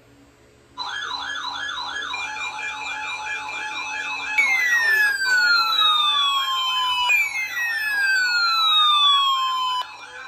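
Electronic alarm sirens sounding together. A fast warbling siren of about three wobbles a second starts just under a second in. A steady high beep tone joins it, then two long falling wails follow one after the other. All of it cuts off suddenly near the end.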